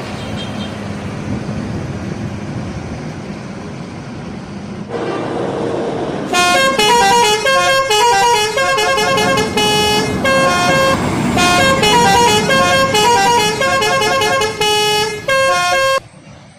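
Bus 'telolet' musical horn playing a quick tune of short stepped notes over engine and road noise. For the first few seconds only the engine and road noise is heard, then one held horn note, then the tune, which cuts off abruptly near the end.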